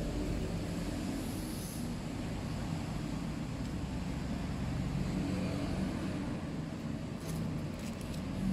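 Steady low background rumble. Near the end comes faint crinkling of aluminium foil as a foil nail wrap is twisted off a finger.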